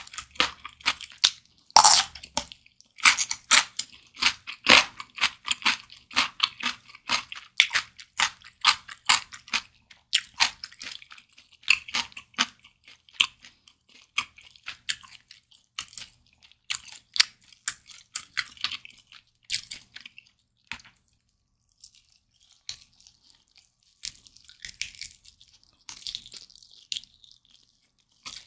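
Close-miked crunchy chewing of a bite of pickled radish, a rapid run of crisp crunches that thins out after about twenty seconds into softer, wetter mouth sounds.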